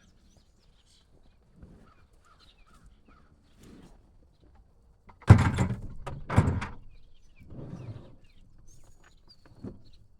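Two loud bangs about a second apart, halfway through, amid faint farmyard sounds.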